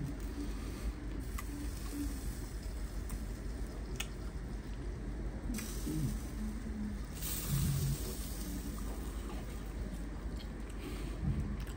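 Pot of chicken stewing on the stove, faint bubbling and liquid sounds over a steady low hum, with a couple of light clicks.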